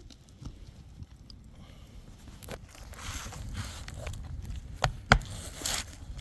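Roof work on asphalt shingles: a few sharp knocks, two close together near the end, and stretches of scraping and rustling as shingles and tools are handled.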